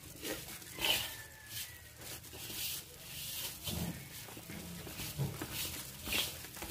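A hand mixing flour into egg yolk, oil and water in a stainless-steel bowl, with wet squishing and scraping against the bowl in short irregular strokes. A few short low sounds come through in the background about four to five seconds in.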